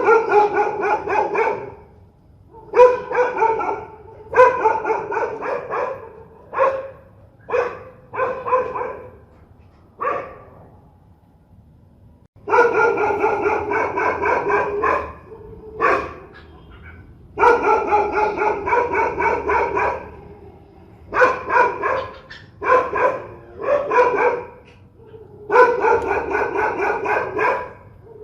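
Dog barking aggressively in bouts: short single barks alternate with runs of rapid barking lasting about two seconds, with brief pauses between.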